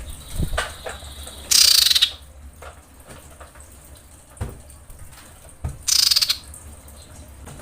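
Female common iora in breeding condition giving two harsh, buzzy calls about four seconds apart, each about half a second long. This is the call a female in breeding condition uses to summon a male.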